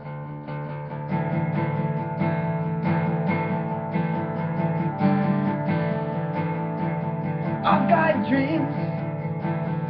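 Acoustic guitar strummed in a steady rhythm of chords, with no singing over it. About eight seconds in, a brief voice sound rises over the guitar.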